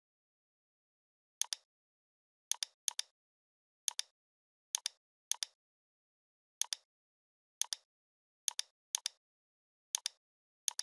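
Computer mouse clicking: about a dozen short, sharp clicks at uneven intervals, some in quick pairs, with dead silence between them.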